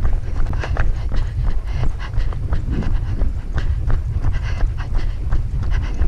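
A runner's footsteps on a trail in an even patter of about three a second, with dogs panting alongside, over a steady low rumble.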